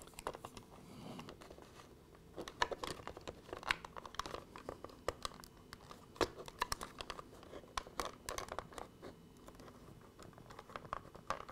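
Irregular small clicks and scratches of a business card being worked into the seams between a Hornby HST power car's plastic body shell and chassis, prising out the clips that hold the shell on.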